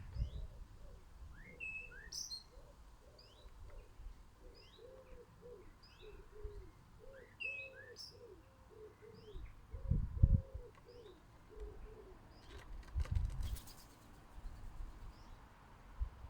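Garden birds chirping in short, repeated high notes, over a dove cooing in a low, repeated phrase through the first half. About ten and thirteen seconds in there are loud low thumps, and near thirteen seconds a brief flutter of wingbeats.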